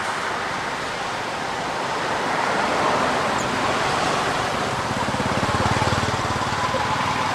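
Steady outdoor background hiss, with a low pulsing rumble that swells about five seconds in and fades again.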